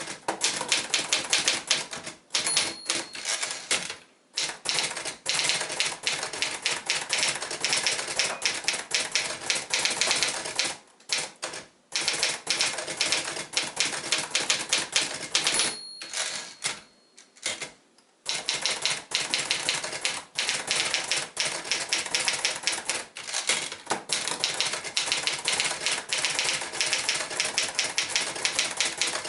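1973 Olivetti Studio 45 portable manual typewriter being typed on at a quick, even pace, its keys clacking many times a second with a few short pauses. A short bell ding sounds twice, about two and a half seconds in and again about fifteen and a half seconds in: the margin bell warning that the line is nearly full.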